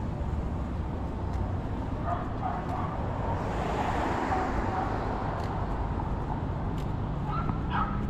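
A dog yipping in short bursts, about two seconds in and again near the end, over a steady low rumble of street traffic.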